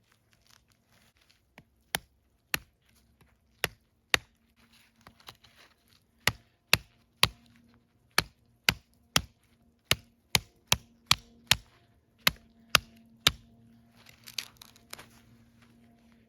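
Repeated sharp chopping strikes with a large folding knife, about twenty knocks that come irregularly at first and then about two a second, with some rustling near the end.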